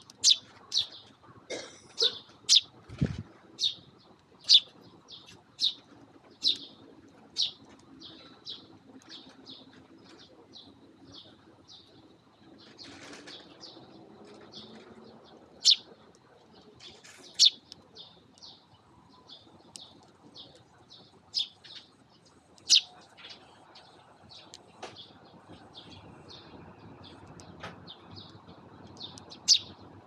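Eurasian tree sparrows chirping: many short, sharp chirps, coming thick in the first eight seconds and more scattered after, with wing flutters as the birds come and go. A low thump sounds about three seconds in.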